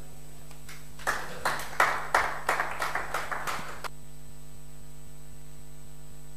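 Brief clapping, about ten claps in three seconds, starting about a second in and stopping near four seconds, over a steady low hum.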